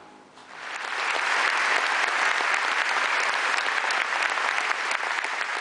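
Audience applauding: the clapping swells in about half a second in and holds steady and dense.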